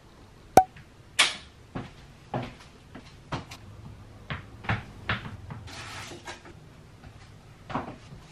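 High-heeled shoes clicking on a hard kitchen floor: a series of sharp footsteps, about two a second, with a short rustling noise about six seconds in.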